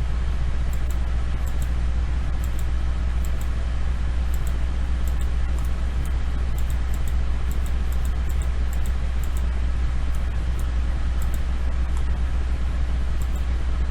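Steady low electrical hum with background hiss, over which faint computer mouse clicks come every second or so, often as quick double clicks.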